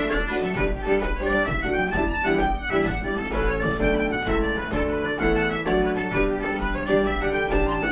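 An Irish traditional tune played by fiddle, concertina, piano and bodhrán together: a quick melody on fiddle and concertina over piano chords, with the bodhrán keeping a steady beat underneath.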